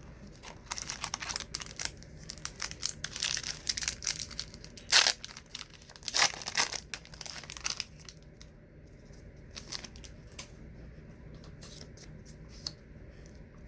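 A wax-paper trading card pack being torn open and crinkled, with the two loudest rips about five and six seconds in; after that only a few faint crinkles.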